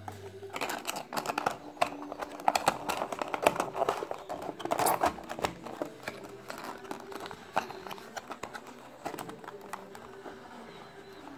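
Small cardboard box and the plastic case inside it handled: a quick, irregular run of clicks, taps and rustles as the case goes in and the flaps are closed, busiest in the first half and tapering off.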